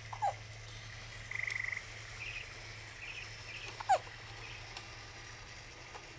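A baby hiccupping twice, about four seconds apart, each hiccup a short sharp squeak that drops in pitch. A brief buzzing rattle and a few faint chirps come between the two hiccups.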